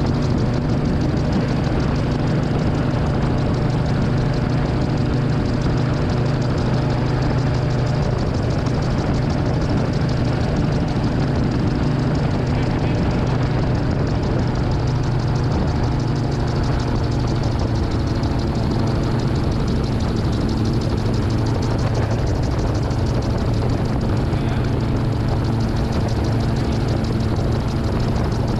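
Titanium gyroplane's engine and pusher propeller running at steady cruise power, an unbroken drone heard from the passenger seat.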